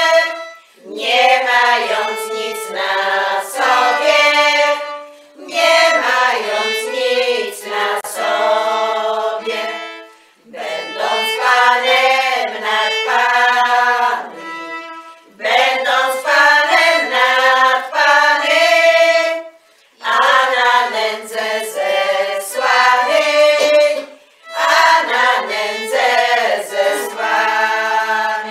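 Women's folk singing group singing a Polish Christmas carol in unison, accompanied by a violin. The song moves in phrases of about four seconds, each followed by a brief breath pause, about six phrases in all.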